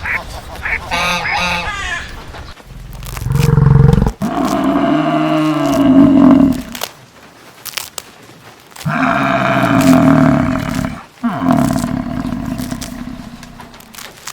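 Honking calls in the first two seconds, then two long, low animal calls of about four seconds each.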